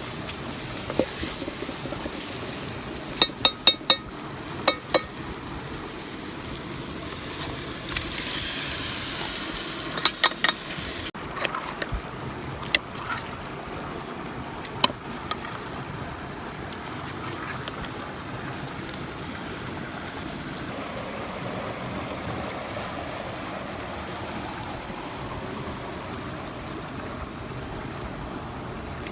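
Steady rushing of a mountain stream, with a few groups of sharp, ringing clinks in the first half.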